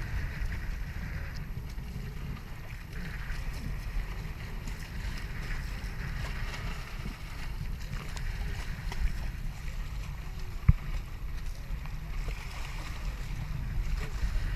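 Wind buffeting the microphone over water rushing and splashing along the hulls of a Hobie Tandem Island sailing trimaran under way. One sharp knock stands out about two-thirds of the way through.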